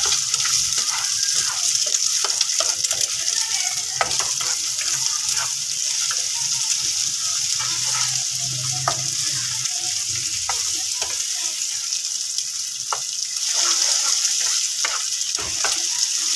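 Eggs sizzling in oil in a frying pan as they are scrambled into a tomato-onion masala. A spatula stirs and scrapes against the pan with frequent short knocks over a steady sizzle.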